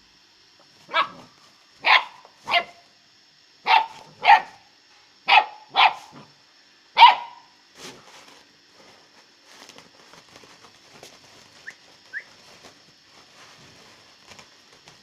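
Great Dane puppy barking: eight short, sharp barks over about six seconds, then falling quiet.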